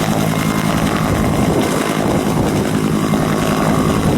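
Steady helicopter engine and rotor noise, a dense, even rushing with a low steady hum.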